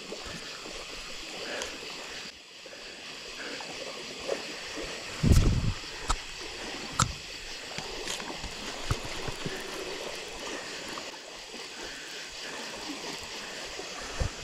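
River water running and gurgling steadily, broken by a few dull thumps, the loudest a little after five seconds in.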